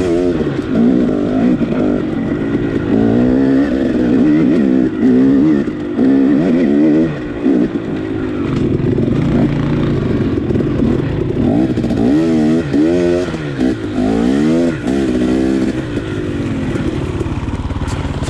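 Dirt bike engine running on a trail ride, its revs rising and falling repeatedly as the throttle is worked. The swings come quicker about two-thirds of the way through, and the engine settles to a steadier, lower note near the end.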